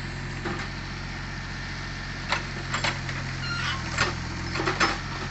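Excavator's diesel engine running steadily at low revs, with several sharp knocks and clanks over it.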